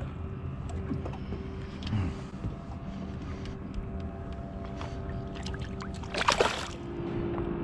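A boat's motor running steadily, a low rumble with a held hum, under faint scattered clicks and knocks. A short, loud rush of noise comes about six seconds in.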